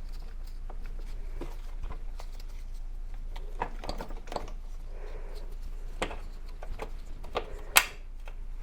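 Scattered light clicks and taps of small metal parts being fitted onto a motorcycle's rear wheel axle, with one sharper click near the end.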